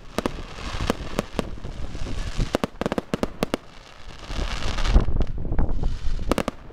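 Fireworks going off: a string of sharp bangs and cracks from bursting shells, becoming a denser spell of crackle with heavier low thumps in the second half.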